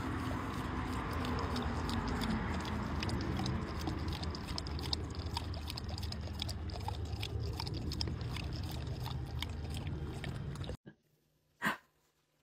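Water trickling from a plastic bottle into a large dog's open mouth while the dog laps and gulps at the stream, with many small wet tongue clicks. It cuts off suddenly near the end, followed by a single soft knock.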